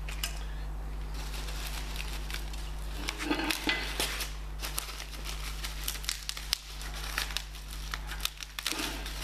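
Plastic packaging wrap crinkling and tearing as a part is unwrapped, in irregular rustles and clicks starting about three seconds in, over a steady low electrical hum.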